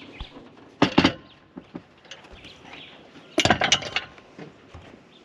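Two short bursts of clattering knocks and clinks, about a second in and again about three and a half seconds in.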